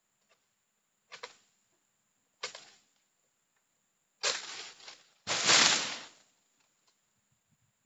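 Long-pole harvesting sickle cutting at an oil palm's crown: two sharp strikes about a second apart. Then a cut frond or fruit bunch falls, first a long rustling crash through the palm leaves, then a louder, heavier crash near six seconds.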